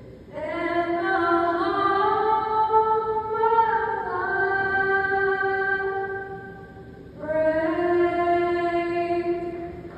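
Young woman singing solo and unaccompanied into a handheld microphone: one long phrase with held notes that rise and fall, a short breath, then a long sustained final note that ends near the end.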